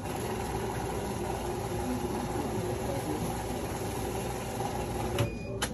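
Banknote counting machine running steadily as it feeds through a stack of bills, with a few sharp clicks near the end.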